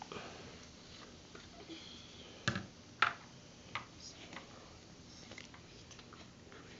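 Light clicks and knocks of a hard plastic toy shell and small parts against a stainless steel bowl and tabletop, the two loudest about two and a half and three seconds in, with fainter handling clicks after.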